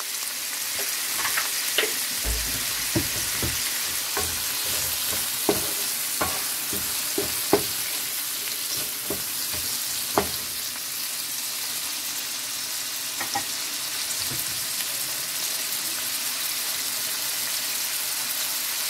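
Prawns, sliced onion and green chillies sizzling steadily in hot oil in a frying pan. A wooden spatula stirs them, knocking and scraping against the pan a dozen or so times over the first three quarters, then the sizzling goes on alone.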